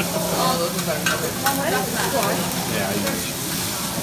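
Fried rice sizzling on a hibachi flat-top griddle as the chef stirs and works it, with a few sharp taps in the first half. Faint voices chatter in the background.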